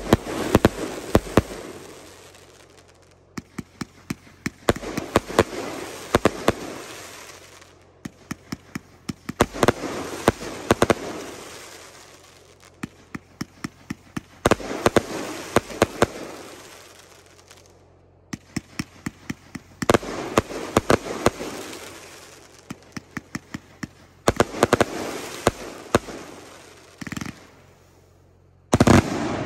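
A 49-shot Miami Vice firework cake firing. Roughly every four to five seconds comes a volley of sharp cracking reports, each fading into crackle, with a single loud bang near the end.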